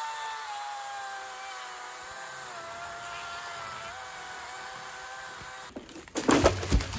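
Chainsaw cutting at full throttle through the trunk of a standing dead oak, its pitch sagging slightly under load. The saw stops about six seconds in, and the felled tree comes down with a loud crash of several cracks and impacts.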